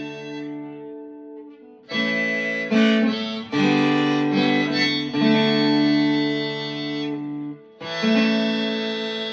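Acoustic guitar and harmonica playing the closing instrumental bars of a country song, with fresh strummed chords coming in about two seconds in, again a second and a half later, and near the end, where the last chord is left ringing.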